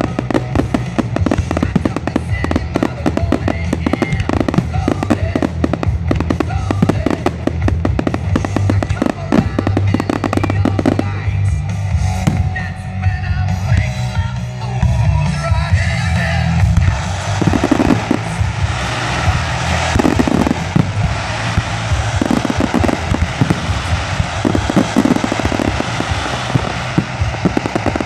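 Aerial fireworks shells bursting in a rapid barrage of bangs and crackling, thinning out for a few seconds midway before building up again.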